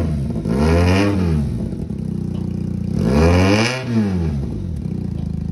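Benelli TNT 300 motorcycle's parallel-twin engine, fitted with a loud aftermarket exhaust, idling and revved twice. Each rev rises and falls back to a steady idle, one about a second in and one about three and a half seconds in.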